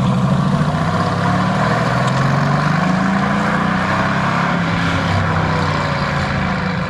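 Mercedes-AMG GT S's twin-turbo V8 running at low revs, its note drifting slightly up and down.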